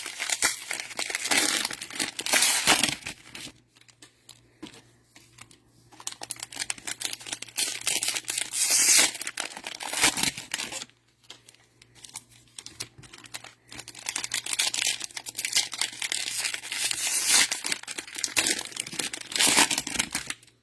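Cellophane wrappers of Mosaic football card cello packs being torn open and crinkled, in irregular bursts with a couple of short quiet pauses.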